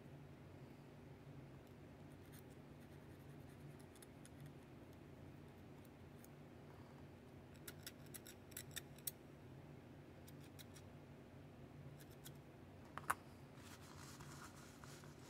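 Faint short scrapes and clicks of a thin metal tool scraping old grime off a small Grover mini Rotomatic tuner part, bunched about eight seconds in, with a sharper click near thirteen seconds. Brief rubbing of a paper towel follows. Otherwise near silence with a low steady hum.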